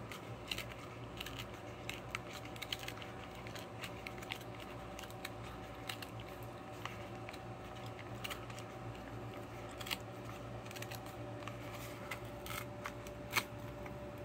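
Small irregular clicks and crackles of hands prying a marker out of its plastic holder on a cardboard coloring-book package, with a sharper click near the end, over a low steady hum.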